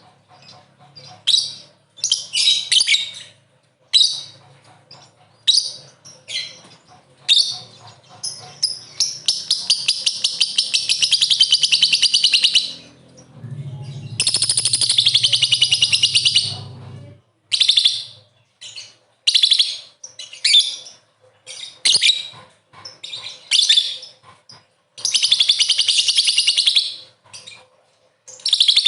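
Lovebird chattering: short shrill chirps in quick bursts, broken three times by long unbroken runs of rapid chatter lasting a few seconds each, about 9 s in, 14 s in and 25 s in. This is the long chatter, 'ngekek', that keepers use as a lure to set other lovebirds chattering.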